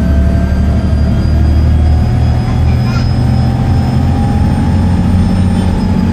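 Volvo B7TL double-decker bus's straight-six diesel engine pulling under way, its pitch climbing gradually, with a high turbo whistle that rises slowly and falls away near the end.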